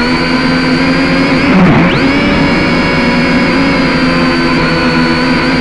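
A drone's electric motors and propellers whining steadily in several tones at once. Their pitch dips briefly and jumps back up about two seconds in as the drone changes speed.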